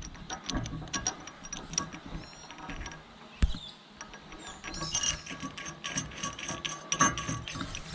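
Metal clicking and clinking of a spring washer and large nut being fitted and turned onto a tow ball's threaded shank under a steel mounting plate, with the clicks coming thick and fast in the last few seconds.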